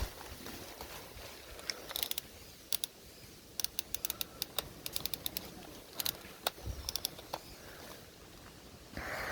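Airsoft guns firing: scattered sharp clicks and snaps, some single and some in quick runs of several a second, mostly in the middle few seconds.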